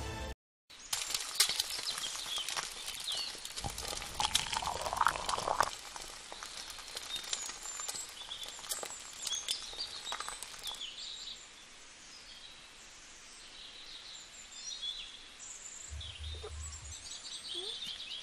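Outdoor ambience with small birds chirping throughout and scattered clicks during the first half.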